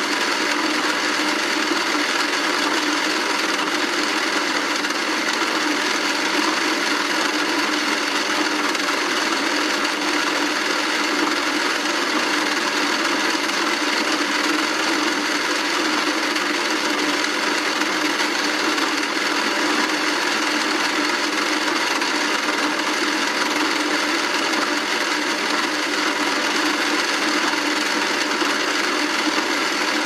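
Small battery motor of a vintage 1990 Barbie toy washing machine and dryer turning the plastic drums, a steady whir that does not change.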